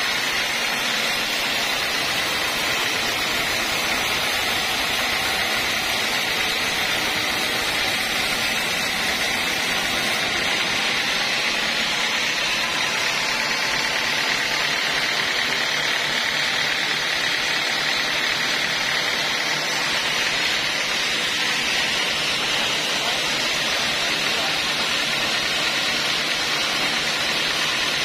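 Homemade band sawmill running steadily, its motor and blade giving an even, unchanging noise.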